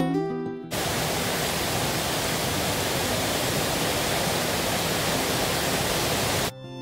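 Kaaterskill Falls waterfall: a steady, even rush of falling water that cuts in abruptly about a second in and cuts off just before the end. Plucked-string music plays briefly at the start.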